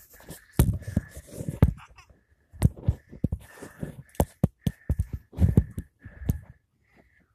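Tree branches rustling and knocking against a handheld phone as the person filming climbs up into a tree: a quick, irregular run of bumps and crackles.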